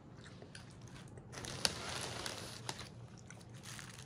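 Gift packaging being handled and opened: irregular crinkling and crackling with scattered clicks, loudest for about a second just before the middle, with one sharp click.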